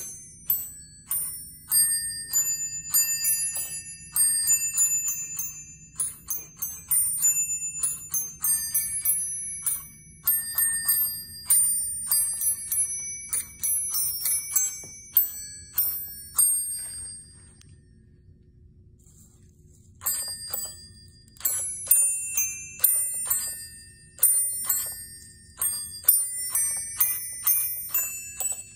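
Electric Christmas bell-ringer striking its small brass bells in quick succession to play a holiday tune. The ringing stops for about two seconds a little past the middle, then starts up again with the next tune.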